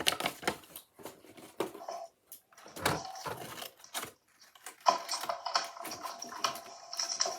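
Paper being handled, folded and pressed flat by hand: scattered crinkles, rustles and light taps, growing busier about five seconds in.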